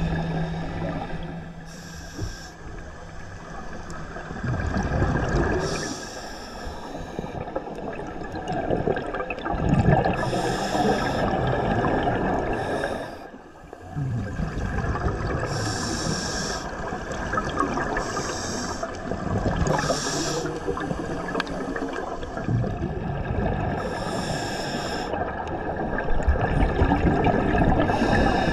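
Scuba diver breathing through a regulator underwater: a short hiss with each breath every few seconds, over a steady bubbling, watery rush.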